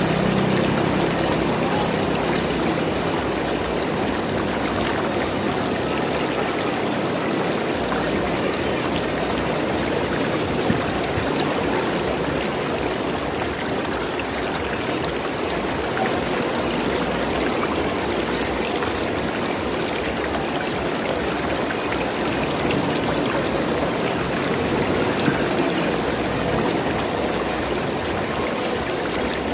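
Running water gurgling and flowing steadily, like a small stream. A low hum fades away in the first second.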